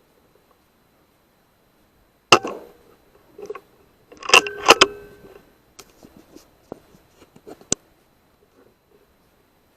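A single sharp crack, then about two seconds later a quick cluster of metallic clanks with a brief ringing, followed by a few lighter scattered clicks and one sharp click near the end.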